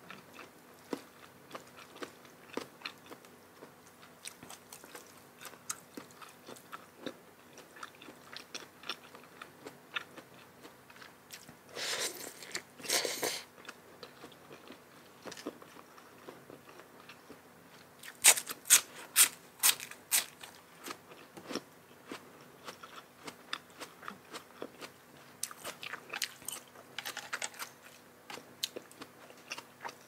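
A person chewing and crunching food close to the microphone, with many small wet clicks of chewing. There are two longer crunches about twelve seconds in, and a run of loud, sharp crunching bites a few seconds later.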